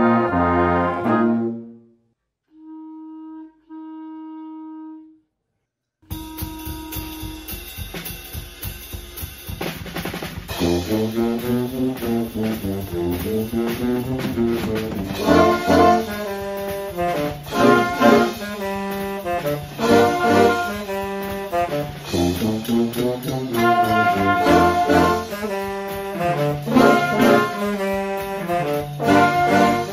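School concert band of flutes, clarinets, saxophones, trumpets, trombone, horn, tuba and drum kit, recorded separately and mixed together: a held chord fades out, then after a pause of a few seconds with two short steady tones, the band starts playing again with the drum kit.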